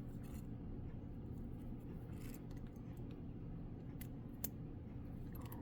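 A few faint clicks and light clinks of sterling silver bracelets being handled, the sharpest about four and a half seconds in, over a steady low hum.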